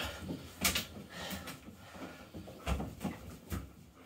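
Towel rubbing the wet fur of an Alaskan Malamute standing in a bathtub, a rustling scrub broken by several dull knocks and bumps against the tub.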